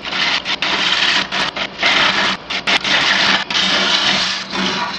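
A gouge cutting across the bottom of a wooden bowl spinning on a wood lathe: a loud, rough cutting noise that breaks off in several short gaps as the tool leaves the wood. The lathe's steady hum runs underneath.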